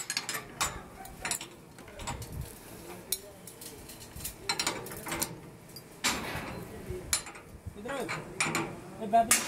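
Steel ring spanner clicking and clinking on the nuts of M24 high-strength friction-grip bolts as they are snug-tightened by hand, an irregular run of short metallic clicks and scrapes, with louder clinks near the end.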